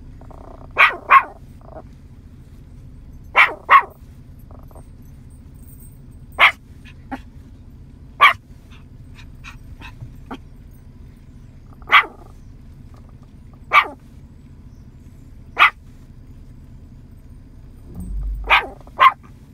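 Yorkshire terrier barking: short, sharp, high barks, singly or in quick pairs, every two to four seconds.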